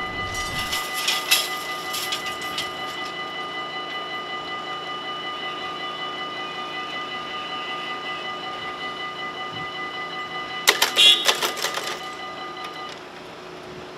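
Dutch level-crossing warning bells ringing in a rapid, even pulse while the half-barriers lower. About eleven seconds in there is a short burst of loud clattering as the barrier booms come down onto their rests. The bells stop about a second later, once the barriers are closed.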